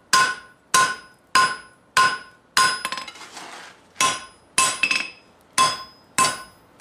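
Hand hammer striking a red-hot steel bar on an anvil, drawing it out to a thin taper. About ten blows at a steady beat, each one a ringing clang, with a break of about a second and a half around three seconds in.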